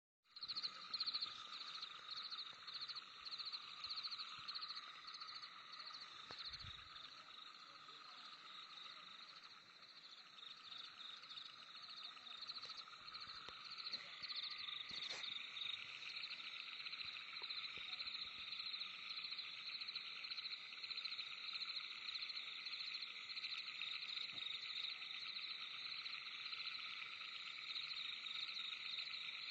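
Night chorus of calling insects and frogs, several layers of fast, pulsing trills at different pitches going on together. A rhythmic higher chirping stands out in the first few seconds, and a middle layer grows louder about halfway through.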